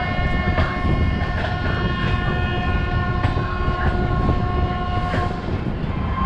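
A train horn sounds in one long held blast that stops about five and a half seconds in, over the steady rumble and clicking of an Indian Railways passenger coach rolling on the track as the Gatimaan Express gets under way.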